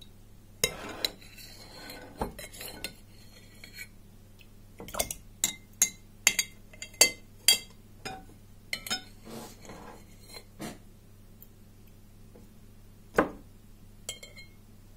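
Metal spoon clinking against the inside of a glass jar of liquid while tomatoes are scooped out, with a quick run of clinks through the middle and a few single knocks before and after.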